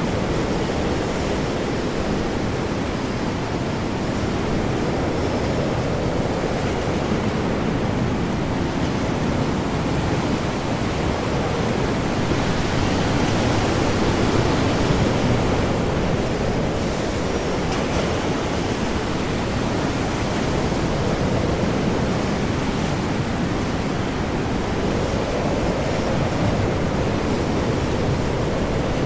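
Storm at sea: high wind and heavy, breaking waves make a dense, continuous rush that surges and eases every several seconds. It is loudest a little before halfway through.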